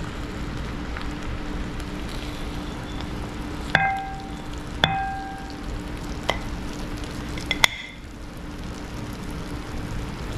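Metal serving spoon scooping pot pie out of a skillet and onto a ceramic plate, with four sharp clinks that ring briefly in the middle, over a steady low hum.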